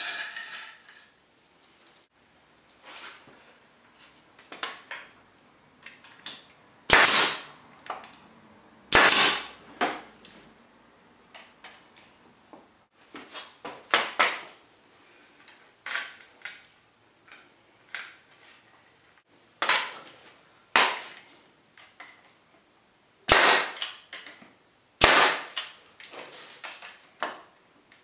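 Brad nailer shooting brad nails into the glued corners of a pine picture frame: single sharp shots a few seconds apart, about eight in all, with lighter knocks of the wood being handled between them.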